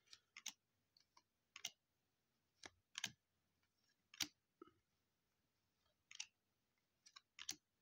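Baseball trading cards being flipped through one at a time: about a dozen short, sharp clicks and snaps of card stock at irregular intervals.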